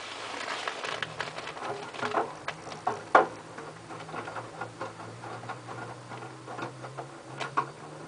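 LG F1222TD inverter direct-drive washing machine tumbling wet laundry in the drum during the rinse: irregular splashing, flopping and clicking, with one louder thump about three seconds in. A low motor hum comes in about a second in.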